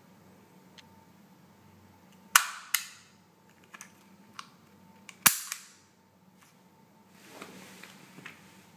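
Two sharp metallic snaps from a KWA/Umarex USP Compact gas-blowback airsoft pistol's slide and action being cycled, each followed by a lighter click, with a few small clicks of handling between them. Near the end there is soft rustling as the pistol goes back into its foam case.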